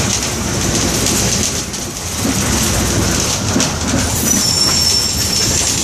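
Vehicle D87413 running with a strange noise from its engine: a continuous loud mechanical rattle and hiss, with a high, thin squeal about four and a half seconds in.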